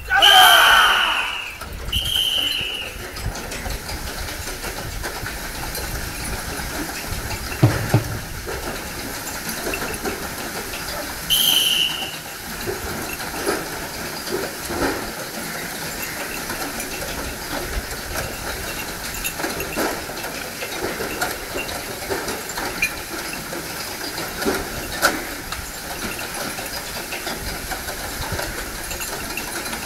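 A bull race: steady rushing noise as a yoked pair of bulls drags a wooden beam over the dirt. Loud high calls ring out at the start, again about two seconds in, and once more about eleven seconds in.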